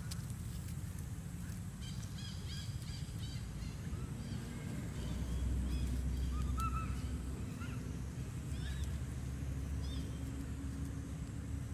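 Outdoor ambience: a string of short, high chirping animal calls, several in quick runs, over a steady low rumble that gets louder about five seconds in.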